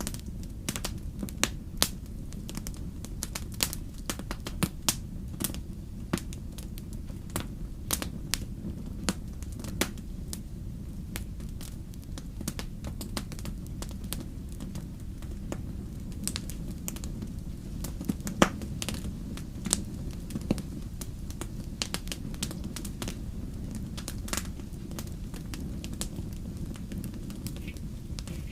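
Wood campfire crackling, with irregular sharp pops and snaps over a steady low rumble.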